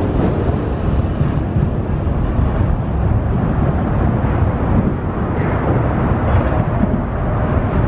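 Mercury outboard motor on a bass boat running steadily as the boat pulls on a line tied to a stuck magnet, mixed with wind rumbling on the microphone.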